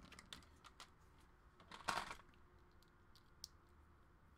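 Faint light clicks and taps, with one short, louder scuffing sound about two seconds in: small hand tools being picked up and handled on a work mat.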